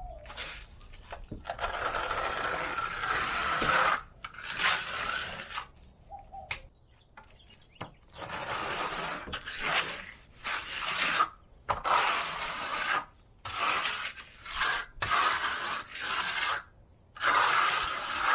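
Trowel scraping across a stucco wall in a series of irregular strokes, each lasting from half a second to about two seconds, with short pauses between them, as the color coat is worked onto the wall.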